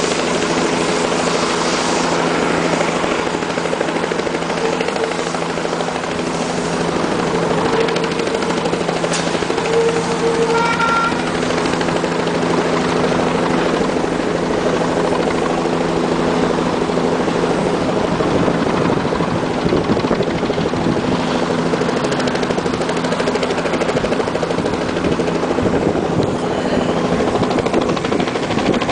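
Police helicopter sitting on the ground with its engine running and main rotor turning: a loud, steady drone made of several held tones over rushing rotor noise. About two-thirds of the way through, the low rotor beat grows rougher.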